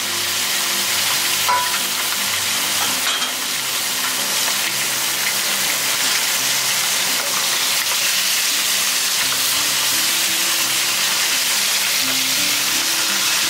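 Scallion, chili, ginger and star anise sizzling steadily in hot oil in a wok beside a frying whole mandarin fish, with a wooden spatula stirring them through the oil.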